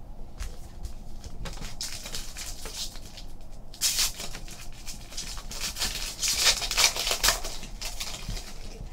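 Foil wrapper of a Panini basketball card pack crinkling and tearing as it is ripped open by hand, loudest from about four seconds in, after a few light clicks and rustles of cards being handled.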